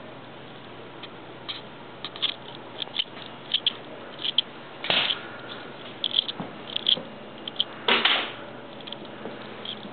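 Handling noise from a handheld camcorder being carried through a room: a steady hiss with scattered light clicks and two louder rustles, about five and eight seconds in.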